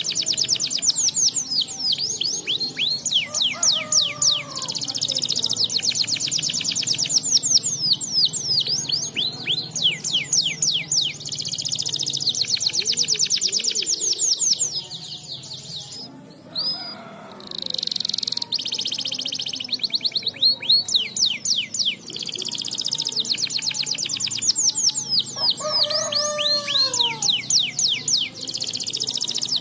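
Domestic canary singing a long, fast song of rapid high trills and rolls, with a short break about halfway through.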